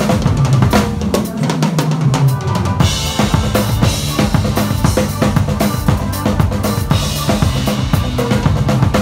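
Acoustic drum kit played live in a busy pattern of kick drum, snare and tom strokes, with cymbal crashes a little under three seconds in and again about seven seconds in. The band's music runs underneath.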